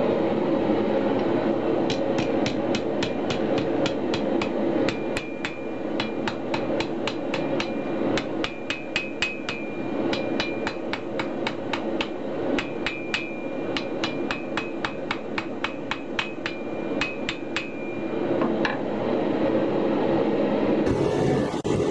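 Hand hammer striking a red-hot Damascus steel blade on an anvil, about three blows a second in runs with short pauses, each blow with a bright metallic ring. The hammering starts about two seconds in and stops a few seconds before the end, over a steady background noise.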